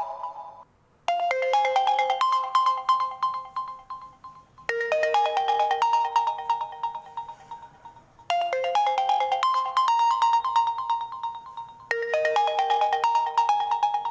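OPPO A3s stock phone ringtone playing on a loop: a short, quick melody of bright notes that starts about a second in and repeats every three and a half seconds or so, four times.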